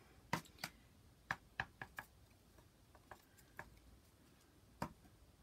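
Light, irregular taps of a paint-dipped tube end being pressed down onto paper to print circles, about ten faint taps in all.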